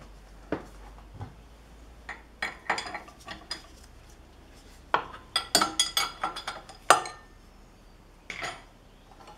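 Steel open-end wrench clinking and clanking against the steel of a milling machine setup as a bolt or nut is broken loose: a string of sharp metallic clinks, busiest about five to seven seconds in.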